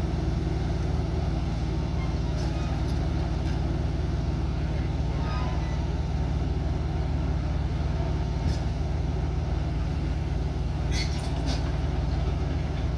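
Heavy diesel engine running steadily at idle, a constant low drone, with a few faint clicks.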